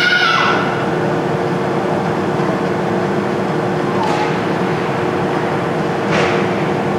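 Steady background hum and din of an indoor ice rink during a youth hockey game, with two steady low tones running under it. A child's high-pitched shout trails off in the first half second.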